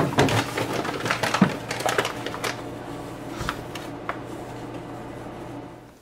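A handful of light clicks and taps at irregular intervals over a steady low hum, thinning out after the first two or three seconds.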